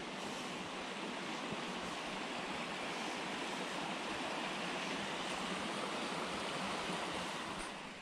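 Creek water rushing and splashing steadily over rocks in a small cascade, fading out at the very end.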